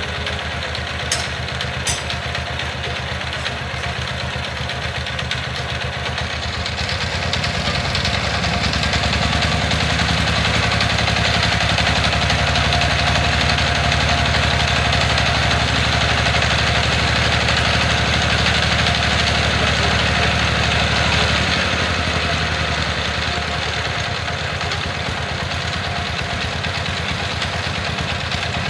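Single-cylinder diesel engine of a homemade ledok dump truck running steadily, with two sharp clicks about a second in. About seven seconds in it is brought up to a higher, louder speed and held there to drive the hydraulic tipper raising the loaded bed, then drops back to idle about twenty-two seconds in.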